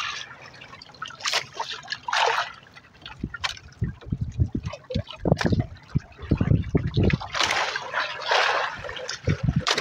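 Seawater lapping and splashing against a small boat, in irregular splashes with short knocks, heaviest about seven to nine seconds in.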